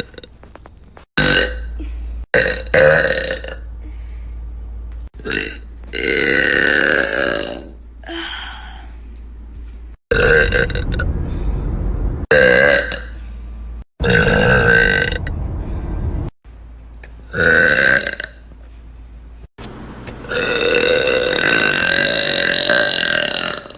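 A young woman burping loudly, a run of separate belches joined by abrupt cuts. Several are long and drawn out with a steady pitch, the longest near the end lasting over three seconds.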